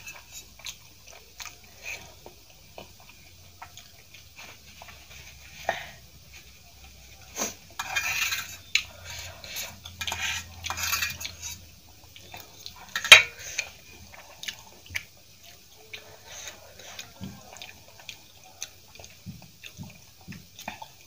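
Metal fork scraping and clinking on a stainless steel plate while the last instant noodles are gathered up. There are denser bursts of scraping from about eight to eleven seconds in and one sharp clink about thirteen seconds in. Soft eating and chewing sounds come in between.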